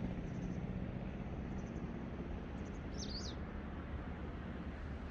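Steady outdoor rumble of wind and sea on an open beach, with a small bird chirping a few times high and briefly, loudest about three seconds in.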